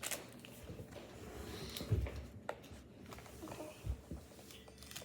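Faint handling of a plastic candy-kit tray and packets on a table: two soft bumps and a light click.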